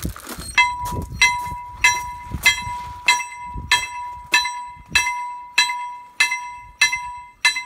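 A bell-like device, which the owner calls his KLD-40, being tested: it strikes over and over, about one strike every 0.6 seconds, each a sharp click with a high ringing tone that carries on into the next.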